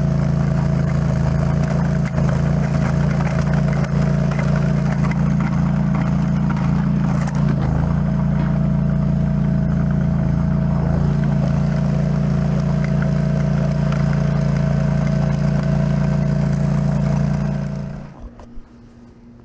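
Engine of a red tracked chain trencher running steadily at working speed while digging a trench. The sound drops away abruptly near the end, leaving a faint low hum.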